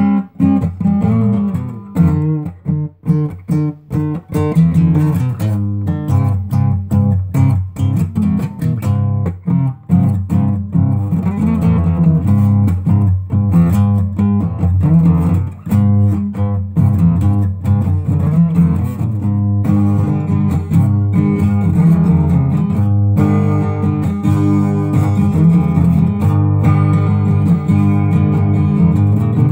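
Solo acoustic guitar: picked notes and chords with gaps between them at first, settling into fuller, steady strumming from about ten seconds in.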